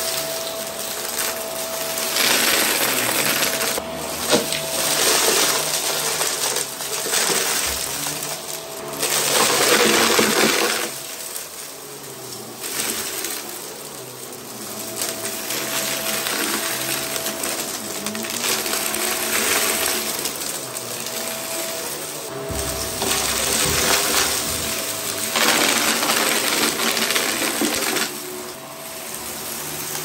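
Vax Mach Air Mk2 upright vacuum cleaner running on carpet, sucking up scattered granular debris that rattles as it goes in. The motor carries a faint steady whine, and the loudness rises and falls every few seconds as the head is pushed back and forth.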